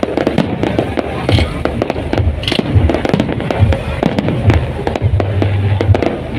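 Aerial fireworks display: shells bursting and crackling stars popping in a dense, continuous run of cracks and bangs.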